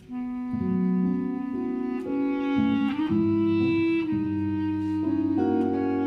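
Jazz big band playing slow, held chords that shift every second or so, with clarinets and saxophones to the fore over a low bass line. The sound dips briefly at the very start before the chords come in.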